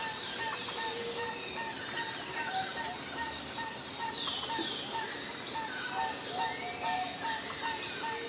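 Birds chirping and calling over soft background music, with short notes recurring about twice a second and a steady high-pitched tone.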